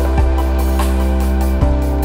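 Background music: sustained chords over a deep note, with a low beat twice, about a second and a half apart.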